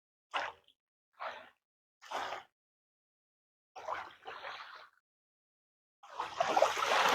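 Small waves lapping and splashing in short separate washes, five in all, with silence between them; the last, about six seconds in, is the longest and loudest.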